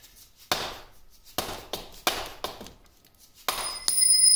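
Hammer blows on metal, driving a part out of a lathe apron: four separate strikes, then a quick run of strikes near the end that leave a high metallic ring.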